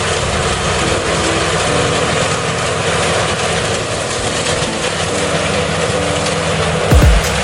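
Full straw head-feeding rice combine harvester with binder running steadily: a dense, even mechanical din over a low engine hum. Near the end, music with deep, thumping bass beats cuts in.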